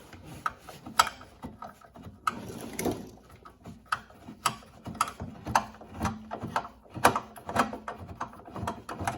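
Ratcheting bit driver clicking in short irregular runs as it turns out the last mounting screw of a microwave oven transformer.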